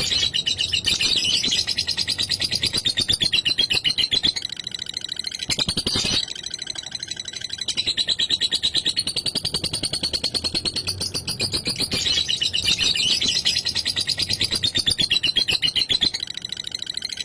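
Lovebird singing 'ngekek': a long, rapid, high-pitched chattering trill that eases off briefly about five seconds in, then picks up again.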